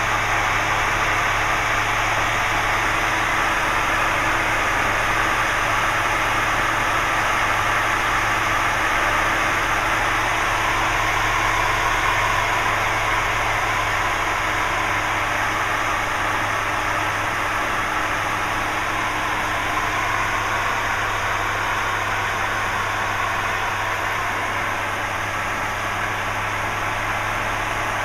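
Light aircraft's engine and propeller droning steadily, heard from inside the cockpit, with an even rush of air and a constant low hum.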